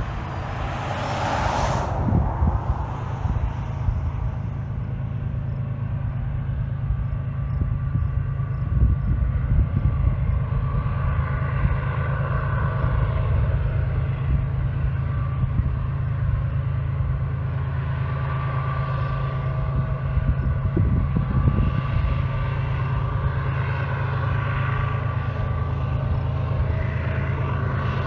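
Diesel freight locomotive working hard up a grade in the distance: a steady low rumble with fainter engine tones coming and going above it. A brief hiss about a second in.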